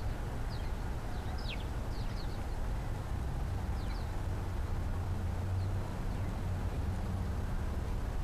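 Steady low outdoor rumble, a little stronger in the middle, with a few faint, short high chirps from small birds.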